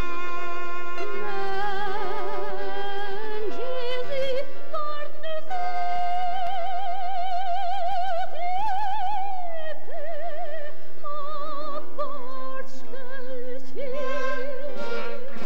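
A woman singing a slow melody with wide vibrato on long held notes, over instrumental accompaniment.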